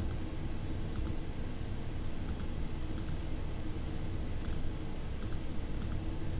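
Computer mouse clicking: short, sharp clicks, mostly in close pairs, about once a second, over a steady low hum.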